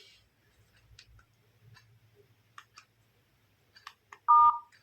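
Keypad phone's key tone: faint clicks of buttons being pressed, then near the end one short two-note dialling beep as a key is pressed.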